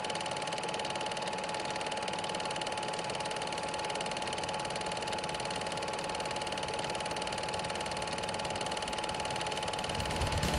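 Film projector running: a steady, fast, even mechanical clatter with a constant whine.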